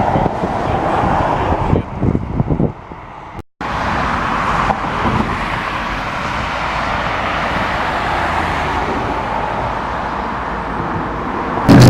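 Motorcycle on the move: steady wind rush and road noise with the engine underneath. It cuts out completely for a moment about three and a half seconds in, and just before the end a much louder engine with a steady pitched drone cuts in suddenly.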